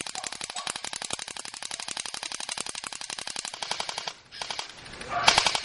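An A&K M249 SAW Para airsoft electric gun firing full-auto as a fast, even rattle of shots for about four seconds. Then come a few short bursts, the loudest about five seconds in.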